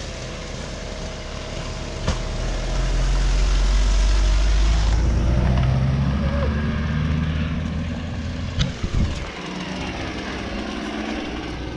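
An engine running with a low, steady drone that grows louder a couple of seconds in, then winds down and cuts off about nine seconds in, with a sharp knock shortly before it stops.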